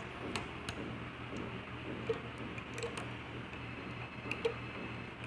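Scattered light clicks and ticks of a bracelet-making hook and rubber bands being handled, at irregular times over a steady low hum.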